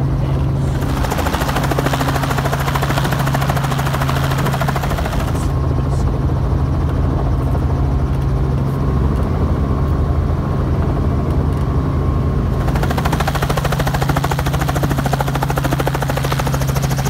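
1998 Robinson R44 Clipper helicopter running on the ground: a steady drone from its Lycoming six-cylinder piston engine, with a fast, even beat from the turning main rotor. A louder hiss comes in about a second in, drops away around five seconds, and returns at about twelve seconds.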